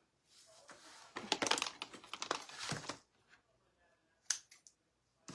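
Crinkling and rustling of craft materials being handled: a dense patch of crackles for about two seconds, then a few sharp clicks near the end.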